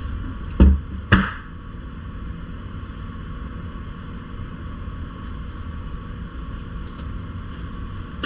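Two sharp knocks about half a second apart, the second with a brief metallic ring, from handling the Fox Float X rear air shock as its air sleeve is unscrewed by hand, then a steady low hum.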